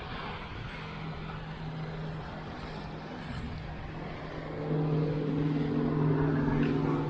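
A motor vehicle's engine running with a steady hum over a noisy background, getting louder about four and a half seconds in.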